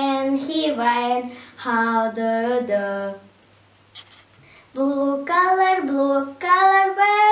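A young girl singing a simple children's colour song unaccompanied, in two phrases of held notes with a short pause between them.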